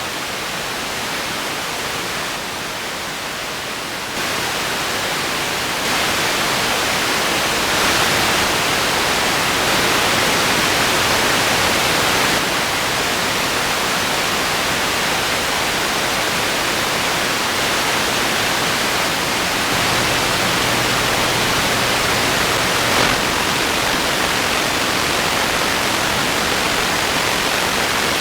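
Television static: a loud, steady hiss of white noise with no tone in it, stepping up in loudness a few times in the first dozen seconds. A faint low hum sits under it for a few seconds past the middle.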